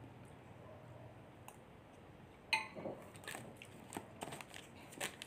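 Eating sounds: about halfway in, a metal spoon clinks against a glass bowl with a short ring, followed by several crunchy clicks of chewing and spoon scraping.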